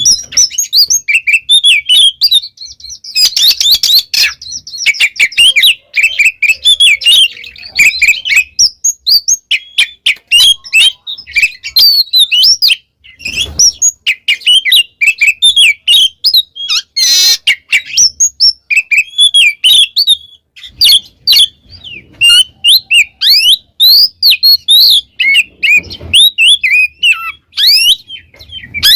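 Oriental magpie-robin singing loudly: a fast, unbroken, varied song of sharp chirps and whistled notes, with a couple of short harsh rasping bursts among them.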